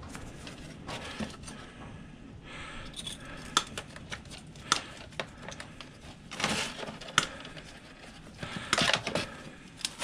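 Scattered light clicks and rattles of hand tools and small plastic and metal parts as a desk fan's plastic switch housing is pulled apart, with a couple of louder scrapes in the second half.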